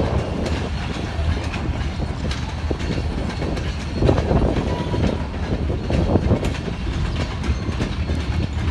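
Freight train rolling past, with a steady low rumble and irregular clicks and knocks from the wheels on the rails, heavy wind buffeting the microphone.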